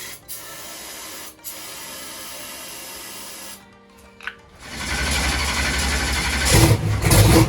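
A race car's engine being cranked over by its starter motor: a steady mechanical whirr for about three seconds, then after a short break a louder spell of cranking from about five seconds in, loudest near the end.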